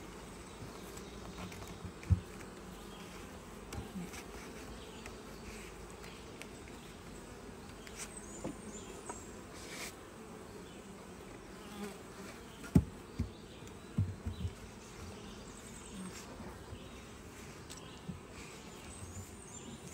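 Honeybees buzzing steadily in large numbers around their hive, with a few sharp knocks, the loudest about thirteen seconds in.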